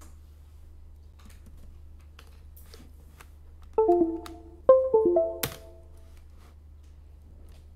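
A short chime of pitched notes in two quick groups, each note struck sharply and dying away, about four seconds in. Faint scattered clicks come before it, over a low steady hum.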